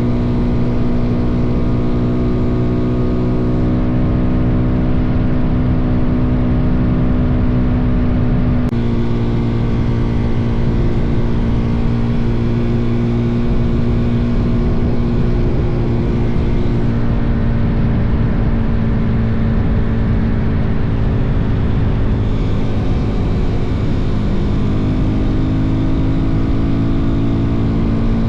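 Suzuki DRZ400's single-cylinder four-stroke engine running at a steady cruising speed, with wind rushing over the microphone. The engine note shifts slightly about nine seconds in and climbs a little near the end.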